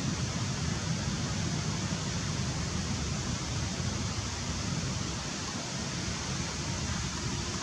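Steady rushing noise with no distinct calls, footsteps or other events.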